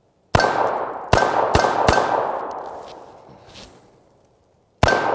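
Dan Wesson 715 revolver firing .38 Special rounds: four shots within about a second and a half, then one more after a pause of about three seconds. A steel target rings after the hits.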